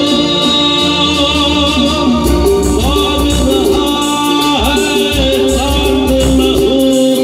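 Live band of electric guitars, bass, keyboards and percussion playing an Indian film song through a PA system, with a male singer singing into a microphone over a steady beat.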